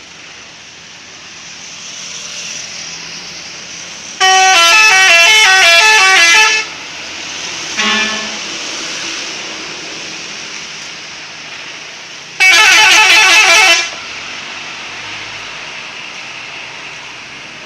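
Harapan Jaya intercity bus sounding its 'telolet' multi-tone musical horn: a fast run of stepping notes lasting about two seconds, then a shorter second burst later on. A brief lower honk comes in between, over steady street noise.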